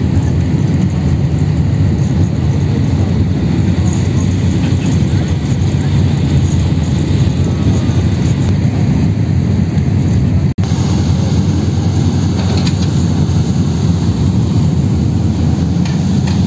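Steady low drone of a catamaran ferry's engines heard from on board, with a momentary break about ten seconds in.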